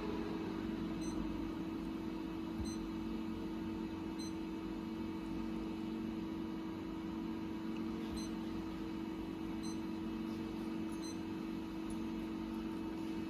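JUNG JE 525 P profile grinding machine running with a steady, even hum and no changes in speed or load.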